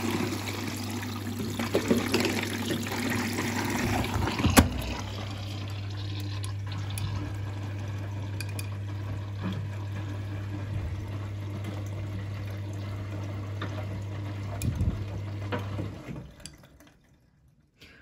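Siemens front-loading washing machine filling: water rushing in through the detergent drawer into the drum over a steady hum, with one sharp knock about four and a half seconds in. The inflow and hum stop about two seconds before the end.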